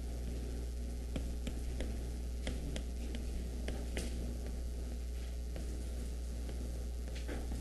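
Steady low electrical hum with irregular light taps and clicks, the sound of writing on a board.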